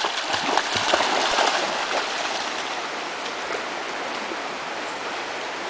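German Shorthaired Pointer puppy splashing through shallow stream water in irregular splashes for about the first two seconds, then the steady rush of the flowing stream.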